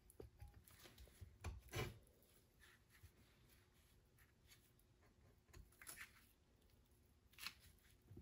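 Faint, scattered clicks, knocks and rubs of a stern drive's water pump housing being handled and worked down the driveshaft to line the impeller up on its key. The loudest knocks come a couple of seconds in.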